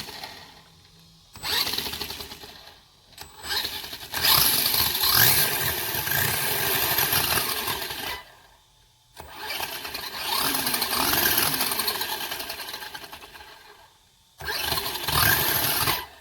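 Brushless electric motor of a Traxxas Monster Slash RC truck, a 3650-size 3900 kV motor run by a newly installed Hobbywing WP-SC8 ESC, revving with its drivetrain in five throttle bursts of a few seconds each, the pitch rising and falling. The bursts show that the new ESC is powering the motor.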